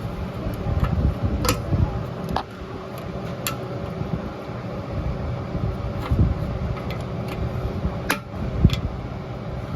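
Steady low mechanical hum with a few sharp metallic clicks and knocks from hand work on a rear drum-in-hat parking brake.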